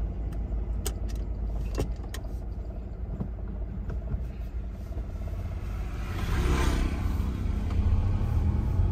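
Cabin noise of a Suzuki car being driven: a steady low rumble of engine and road. There are a few sharp clicks in the first two seconds, and the rumble swells louder, with a burst of hiss, about six seconds in.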